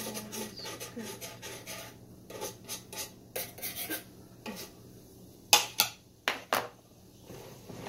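Cooking utensils scraping and clinking against pans and dishes: a run of light scrapes and clicks, then four sharp knocks in the second half.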